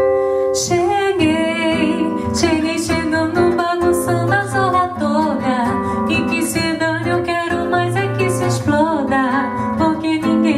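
Acoustic guitar playing with a singing voice over it, a gentle bossa nova / MPB-style arrangement.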